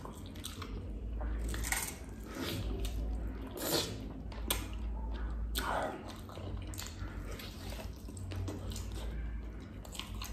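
Close chewing and biting of roast beggar's chicken, with irregular wet mouth clicks and smacks as the meat is torn and eaten.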